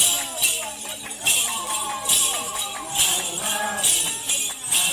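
Intro music: a melody over regular, bright, jingling percussion accents.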